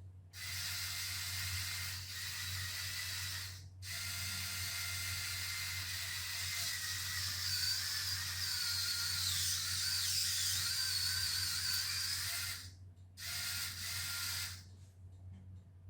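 Small electric gear motors of a Go Go Car line-follower toy whirring through their plastic gearing, starting and stopping three times: a short run, a long run of about nine seconds, and a brief run near the end. One of the two drive motors is a mismatched replacement that runs at a different speed from the original.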